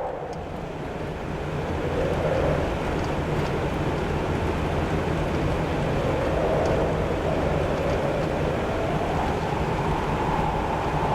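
Car engine and road noise while driving uphill, a steady drone whose engine note slowly rises and falls.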